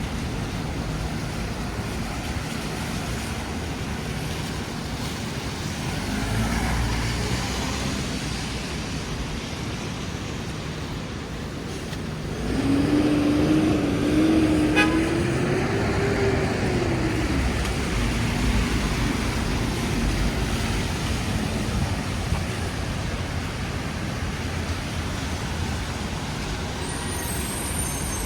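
Street traffic on a rainy city street: a steady hiss of rain and tyres on wet pavement with vehicles passing. About halfway through a heavy vehicle goes by louder, its tone wavering, rising and then falling over a few seconds.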